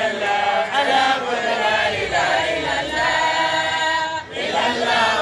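Men's voices chanting Islamic religious verses together in a sung melody, with a brief break about four seconds in.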